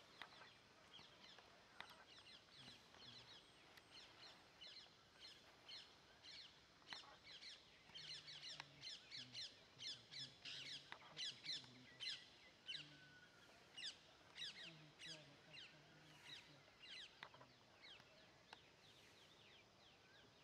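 Faint bird chirping: many short, quick calls overlapping, busiest in the middle stretch.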